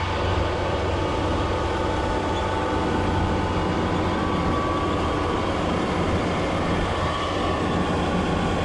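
Large farm machine's engine running steadily under load, a low hum with an even rumble and no change in pitch. It starts abruptly at the very beginning.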